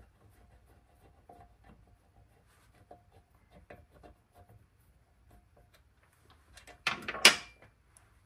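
Faint small metal clicks and taps as parts of a Dillon RL550B reloading press are worked loose by hand, then a loud short metal clunk about seven seconds in, lasting about half a second.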